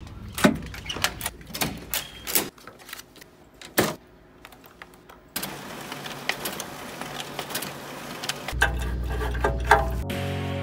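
A quick series of sharp metal clicks and knocks from hands working door and trailer hardware, with a low steady hum under the last few clicks. Music starts just before the end.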